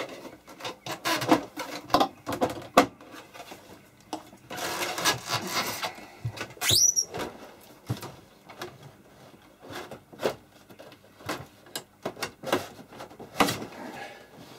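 Metal outer cabinet of a Tektronix 2445A oscilloscope being slid off its chassis: scraping and rubbing with a string of knocks and clunks. There is a longer scrape about four seconds in and a short rising squeak near seven seconds.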